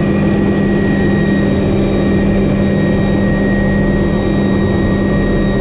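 MD520N NOTAR helicopter's Rolls-Royce 250 turboshaft engine and rotor system running steadily at full rotor speed, heard from inside the cabin: a constant loud hum with a steady high turbine whine over it.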